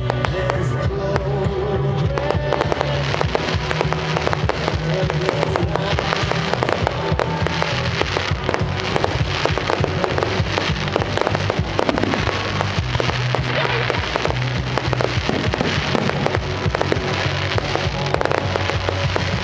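Aerial fireworks going off in a dense, continuous run of bangs and rapid pops, with music playing along underneath.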